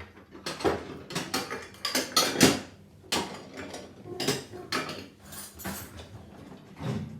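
Dishes and cutlery clattering and clinking as a dishwasher is unloaded in a hurry, a quick irregular run of knocks with one louder knock about two and a half seconds in.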